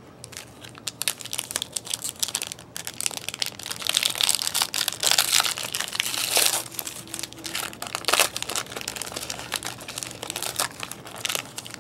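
Plastic-foil wrapper of a Panini Prizm basketball card pack being crinkled and torn open by hand, a dense crackling that is loudest in the middle. The pack is hard to get open.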